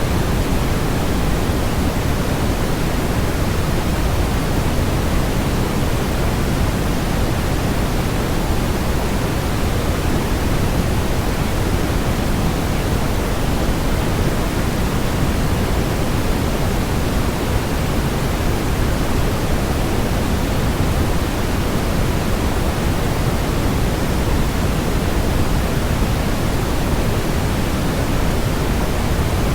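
Synthetic white-noise track: a steady, unchanging rushing hiss, heavier in the low end than in the treble.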